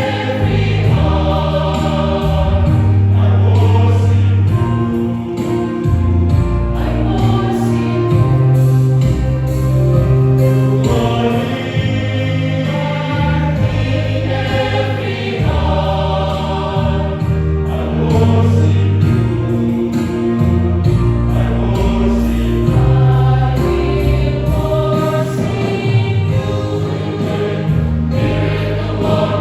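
A church choir singing a hymn in harmony: several voice parts hold and move between sustained chords over deep bass notes.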